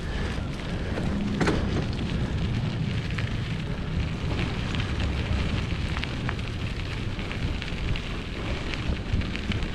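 Wind buffeting the microphone, a steady low rumble, with scattered crackles and ticks over it.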